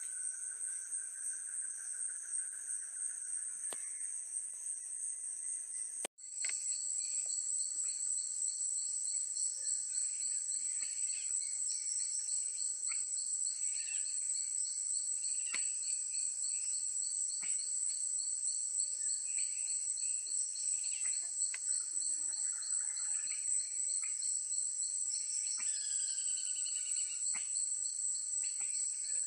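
Forest insects droning steadily at a high pitch, with scattered short bird chirps and a few falling bird whistles near the end. The sound cuts out for an instant about six seconds in and comes back.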